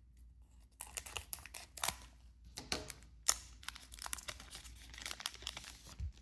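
Foil booster-pack wrapper crinkling and tearing as a trading-card pack is opened by hand, a dense run of irregular crackles.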